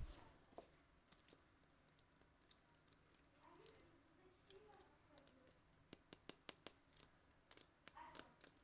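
Near silence with faint, scattered clicks and taps from handling a slime toy and its packaging, the clicks coming more often near the end.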